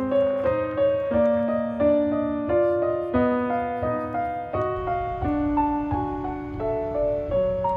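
Background music: a piano melody over bass notes, a new note every third to half second.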